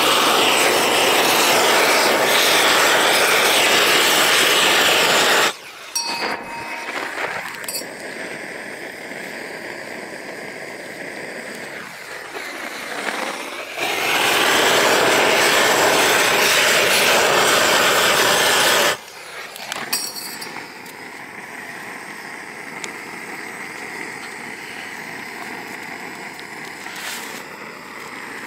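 Gas roofing torch heating torch-on bitumen felt: a loud, steady rushing roar for about five seconds that drops suddenly to a much quieter burn. A second loud blast of about five seconds comes in the middle and cuts back to the quieter burn again.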